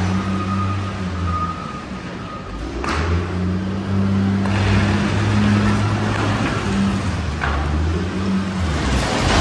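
Wheel loader's diesel engine running with a steady low hum as it reverses and drives forward, and a rush of garbage being pushed across concrete and sliding into the pit near the end.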